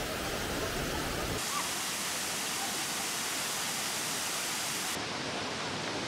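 Rushing water of the Kravice waterfalls, a tufa cascade on the Trebižat River: a steady, even rush of falling water whose tone shifts abruptly about one and a half seconds in and again about five seconds in.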